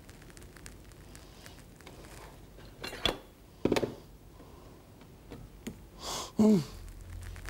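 Coffee machine being handled: small clicks and knocks from its lid and parts, two sharper knocks about three seconds in, then a short wavering squeak. Near the end the machine starts a low steady hum.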